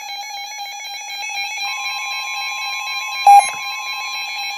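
Emergency alert attention tones from two phones going off at once: a loud, steady alternating alarm tone, with a second, higher steady tone joining about a second and a half in. A sharp, loud knock cuts in about three seconds in.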